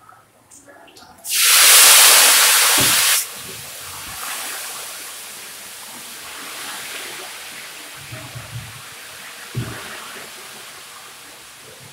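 Food sizzling in hot oil. A loud burst of sizzling starts about a second in and lasts about two seconds, then drops sharply to a quieter steady sizzle, with a couple of low knocks.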